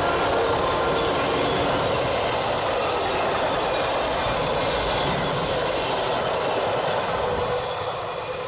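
Amtrak Superliner double-deck passenger cars rolling past: a steady rumble and rush of wheels on rail, easing off a little near the end.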